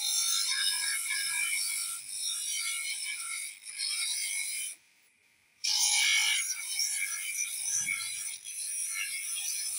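A wooden tool handle pressed against a spinning abrasive disc on a small electric motor, giving a steady high grinding hiss as the wood is shaped. It breaks off for under a second about halfway through.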